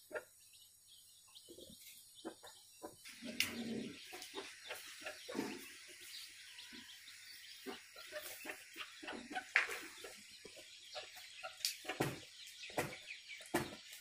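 Chicks peeping as they peck at grain. About three seconds in, that gives way to rustling and crunching as a Yalaga ram tears at a hanging bunch of leafy fodder and chews it.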